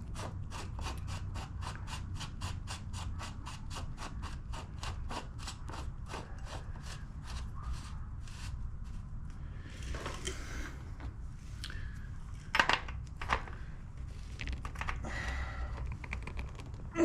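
Steady run of ratchet clicks, about five a second, as a ratchet tool turns a bicycle bottom bracket cup into its threads. It stops after about eight seconds, followed by a scrape and a few knocks and rubs of tools on metal.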